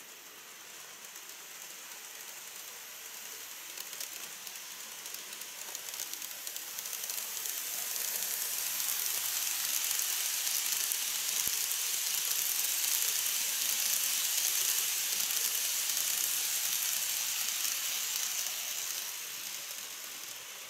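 KATO model train (an EF81 electric locomotive hauling E26 Cassiopeia sleeper cars) running along the track: a steady whirring rattle of the motor and wheels on the rails. It grows louder as the train approaches, is loudest as it passes, then fades as it moves away.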